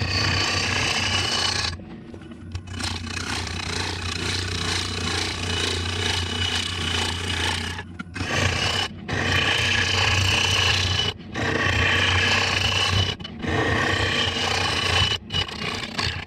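A gouge cutting into a large spinning apple wood blank on a Rikon wood lathe: a continuous rough scraping, shearing noise over a steady low hum. It breaks off briefly several times.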